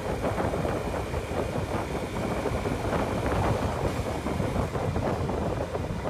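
Motorcycle riding at speed: wind buffeting the microphone, with the bike's engine running steadily underneath.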